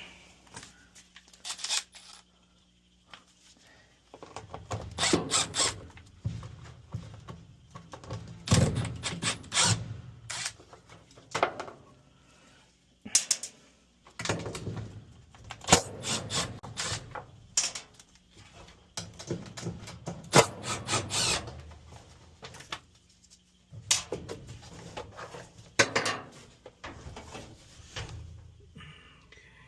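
Irregular knocks, clicks and scraping of tools and metal parts being handled while a Frigidaire dryer is taken apart.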